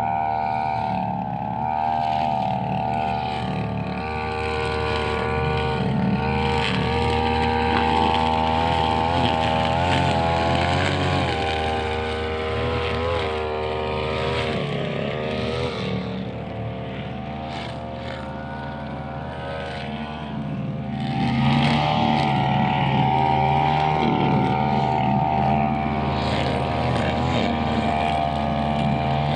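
Brushcutter engine running at high speed while cutting grass, its pitch wavering up and down under the changing load, and getting louder about two-thirds of the way in.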